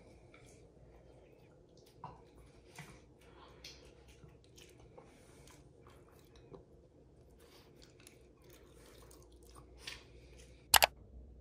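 Small dog chewing a treat: a scatter of faint, short crunches and clicks. A sharp double click near the end is the loudest sound.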